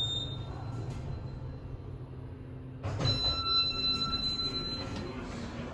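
Otis Gen 2 traction elevator car travelling with a steady low hum, which stops about three seconds in as the car arrives; at that moment a chime rings out with several high tones for about two seconds and fades.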